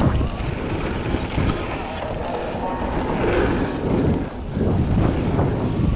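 Wind buffeting the microphone over the steady rumble and crunch of a Commencal mountain bike's tyres rolling fast down a gravel trail.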